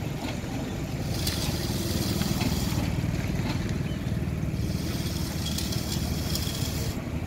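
Steel-tined texturing rake scraping grooves into fresh concrete, a hiss that comes in three strokes of about a second and a half each. Under it runs a steady low engine-like rumble.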